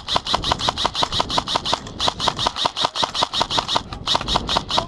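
Airsoft rifle firing on full auto in long bursts of about ten shots a second, broken by two short pauses.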